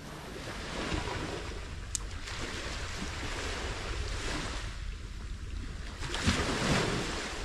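Sea waves washing onto the shore, the surf swelling and ebbing several times, with wind rumbling on the microphone. A single sharp click about two seconds in.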